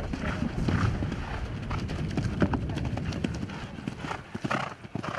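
A horse splashing through the shallow water of a cross-country water jump, then galloping on grass, its hoofbeats drumming close by and fading near the end.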